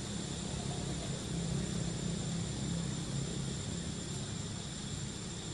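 Steady background noise: a low, even drone under a hiss, with a thin high tone held throughout.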